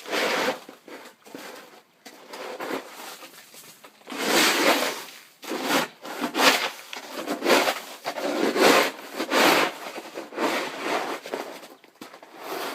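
A snow shovel scraping and chipping at icy, frozen-solid snow in irregular strokes, a gritty scrape every second or so, with a short pause near the start.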